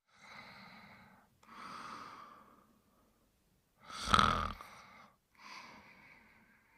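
Snoring in sleep: four slow, noisy breaths, the third, about four seconds in, a much louder snore with a low rumble.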